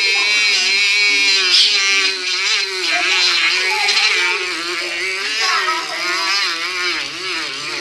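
Small hand-held rotary motor spinning a brush against an etched copper piece to polish it: a steady whine whose pitch wavers up and down as the brush is pressed on the metal, with a scrubbing hiss over it.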